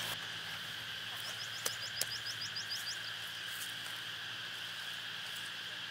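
A steady animal chorus held on a high pitch. Between one and three seconds in comes a quick run of about ten short, falling chirps, and two sharp clicks fall near the start of that run.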